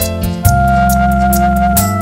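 Live acoustic band playing an instrumental passage: guitars, drums and bass under one long held melody note, with the bass changing about half a second in and again near the end.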